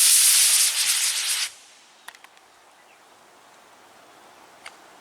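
A C5-3 model rocket motor burning with a loud, harsh hiss that stops abruptly about a second and a half in. A couple of faint clicks follow.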